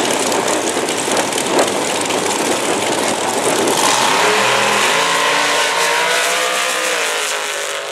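Two Top Dragsters' V8 engines running loudly at the starting line, then launching about four seconds in: the engine note climbs in pitch as the cars accelerate away, and it fades near the end.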